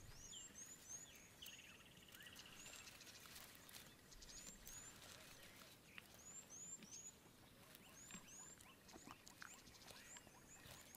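Near silence, with small birds calling faintly in the background: clusters of short, high chirps and a brief trill near the start.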